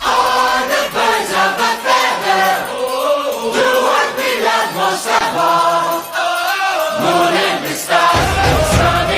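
Background music with a choir singing, starting abruptly after a fade-out; a heavy bass comes in near the end.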